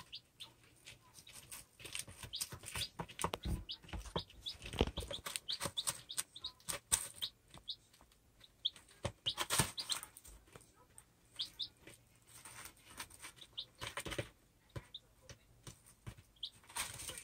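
Baby chicks pecking and scratching in pine shavings and feed: a busy scatter of quick clicks and rustles, with occasional short high peeps.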